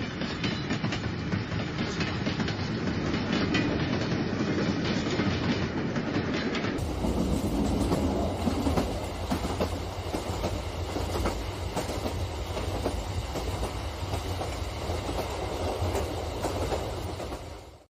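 HO scale model freight train wagons rolling along sectional track, their wheels clicking rapidly over the rail joints with a steady rumble. The sound changes character about seven seconds in and cuts off abruptly near the end.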